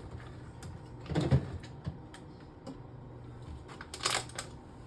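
Groceries being handled and put away in a fridge: scattered clicks and knocks, a louder thud about a second in, and a short rustle of packaging about four seconds in.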